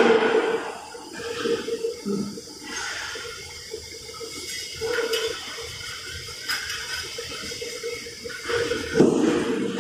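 Hole-making machine working metal plate: a hum that comes and goes, with repeated rushing, hissing bursts. The bursts are loudest at the start and again about nine seconds in.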